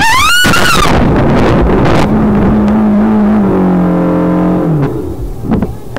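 A car sliding off a snowy road into a snowbank: a loud high scream that rises and falls over the first second, a few sharp knocks as the car goes into the snow, then a steady drone for a few seconds that sinks slightly in pitch and stops.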